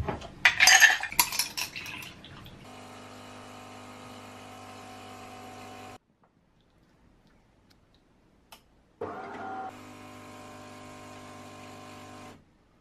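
A glass with ice cubes clinking as it is handled, then a fully automatic espresso machine running with a steady hum as it dispenses coffee. The hum stops about six seconds in, starts again about three seconds later with a brief louder surge, and cuts off shortly before the end.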